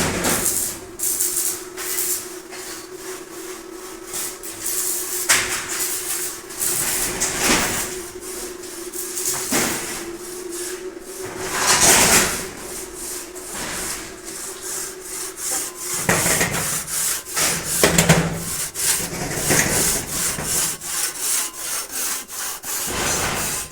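Arc welding crackling and hissing in uneven surges, dense with sharp pops, louder around the middle and again later. A steady low hum runs under it through the first half.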